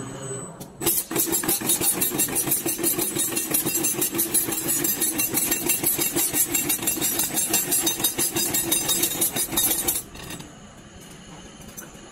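Radiator core assembly machine running: a fast, even mechanical rattle over a steady hum as it indexes tubes and fins into the core, stopping abruptly near the end and leaving a quieter machine hum.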